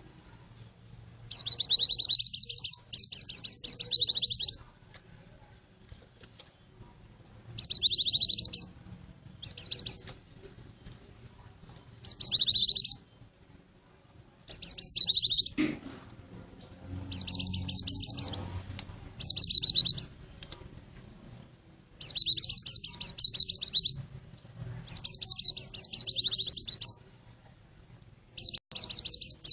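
White-eye (pleci) song: about ten bursts of rapid, high twittering chatter, each half a second to two seconds long, with short pauses between.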